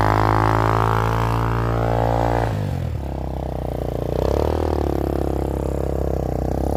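Kuba Black Cat motorcycle's single-cylinder engine held at high revs while the rear wheel spins in snow: a steady drone that drops sharply about two and a half seconds in, then rises briefly and settles at a lower, steady pitch.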